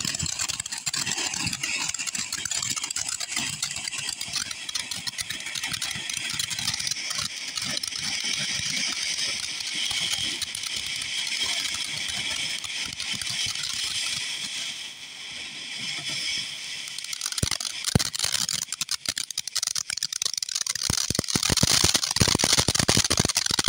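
DFS Nightly Night ground fountain firework burning with a steady, loud hiss of spraying sparks. About three-quarters of the way in, sharp crackling pops join it and grow denser toward the end as the fountain's strobe-crackle phase begins.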